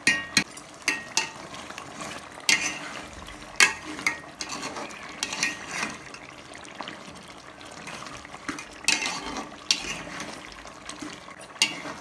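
A cooking spoon stirring thick chicken masala in an aluminium pot: irregular scrapes and knocks of the spoon against the pot's sides and bottom, with the wet stirring of the gravy between them.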